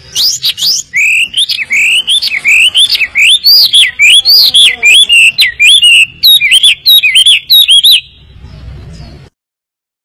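Hwamei (melodious laughingthrush) singing a fast run of loud, looping whistled notes, about three a second, which stops about eight seconds in.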